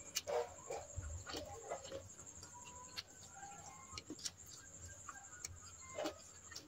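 Close mouth sounds of someone eating rice and chicken curry: scattered wet clicks and smacks of chewing, about one every second or so, with a few short faint bird calls behind them.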